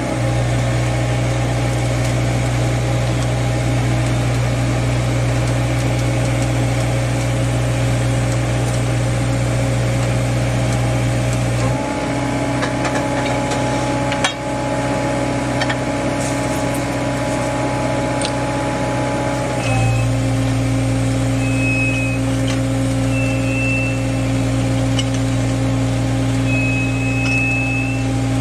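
Geoprobe 7700 direct-push drill rig's engine running steadily under load, its note changing twice as the rig works, with a single sharp metallic knock about halfway through and a few short high squeals near the end.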